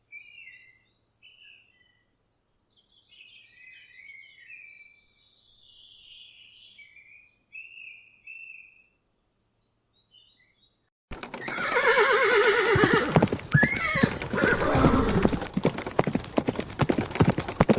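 Birds chirping faintly, then, about two-thirds of the way in, a horse suddenly whinnies loudly over a fast clatter of hooves, the clip-clop running on to the end.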